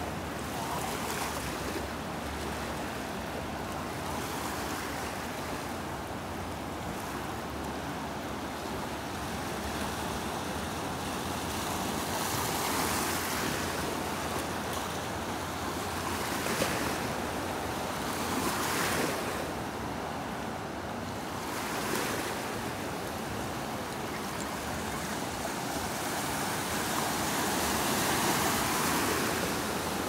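Ocean surf: small waves breaking offshore and washing in, a steady rushing hiss that swells louder several times as sets break.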